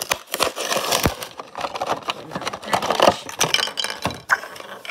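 Crackling, clicking and crinkling of Hot Wheels cardboard-and-plastic toy packaging being handled and pulled apart close to the microphone.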